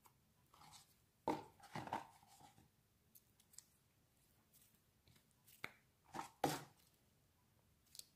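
Butter slime being squeezed and stretched by hand, giving two short bunches of sticky pops and crackles, about a second in and again around six seconds, and a single click near the end.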